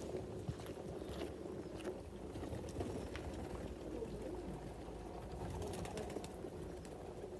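Water running and splashing steadily in a pigeons' bath as the birds bathe in it, with scattered light clicks.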